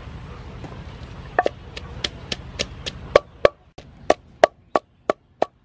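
Wooden pestle pounding garlic and chili in a mortar to make a paste: a steady run of dull knocks, about three a second, starting about a second and a half in.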